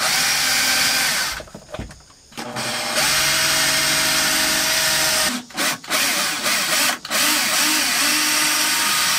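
Cordless drill drilling overhead in several runs, with a pause of about a second and a half near the start and two brief stops later.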